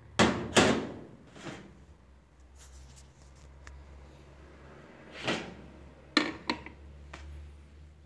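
Knocks and clinks of a ceramic coffee cup being handled and set down on the metal drip tray of a capsule coffee machine: two sharp knocks close together in the first second, a lighter one shortly after, then more knocks about five and six seconds in. A low steady hum lies under them while the machine heats up.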